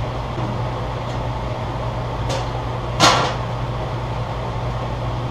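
Propane burner running steadily under a steam boiler, a constant noise with a low hum. About three seconds in there is a single sharp knock, with a fainter one shortly before it.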